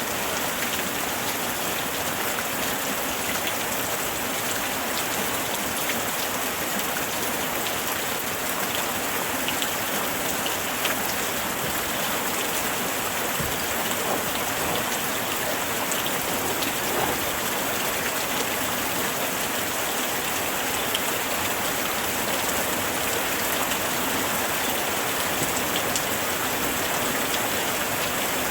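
Heavy rain falling steadily on tree foliage: an even hiss with scattered individual drop ticks.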